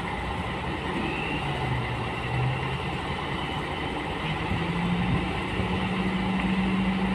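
Heavy diesel engine running steadily, its note stepping up about four seconds in and holding there.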